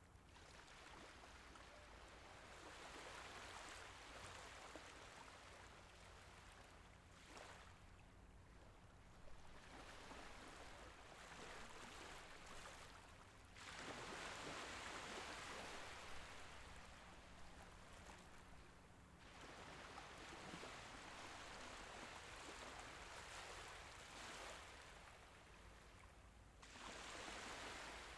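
Small Mediterranean Sea waves washing in and drawing back, faint, the wash swelling and fading every few seconds, with a longer, louder surge about halfway through.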